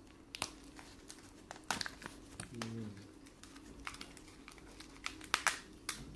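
Clear plastic card sleeves and cardboard packing crinkling and clicking as they are handled and pulled apart, in irregular sharp crackles.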